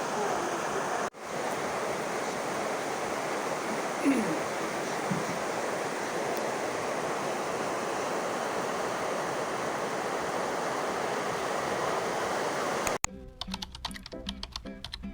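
Ocean surf washing steadily on the shore, an even rushing noise with a brief dropout about a second in. Near the end it cuts off abruptly, giving way to plucked guitar music.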